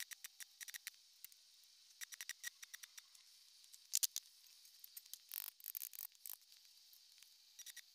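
Faint, irregular sharp clicks and ticks in small clusters, loudest about four seconds in, with a brief scraping rustle about a second after that.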